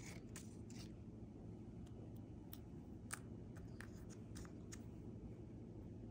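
Small handling sounds: a sheet of paper rustling in the first second, then scattered light clicks and ticks as fingers pick up and handle small metal iPhone SIM trays, over a low steady hum.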